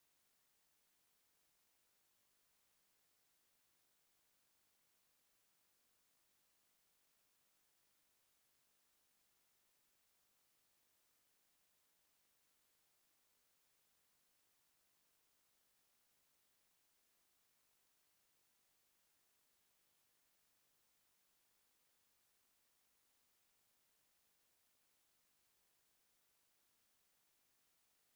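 Near silence: no audible sound at all.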